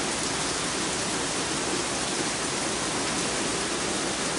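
Heavy downpour of rain, a steady, even hiss.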